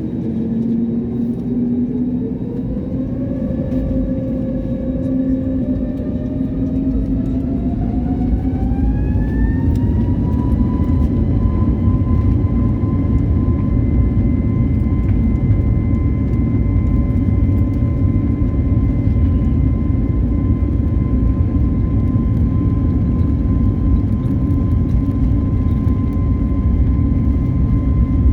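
Airliner jet engines spooling up to takeoff power: a whine rises steadily in pitch for about ten seconds, then holds at a steady high tone over a growing low rumble as the aircraft accelerates down the runway.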